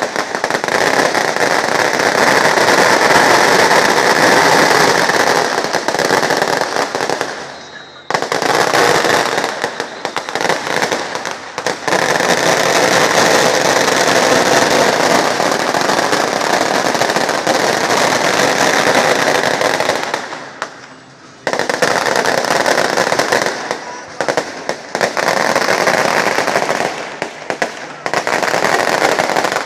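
Fireworks going off in long runs of dense, rapid crackling bangs, each run lasting several seconds, with brief pauses about 8, 11 and 21 seconds in.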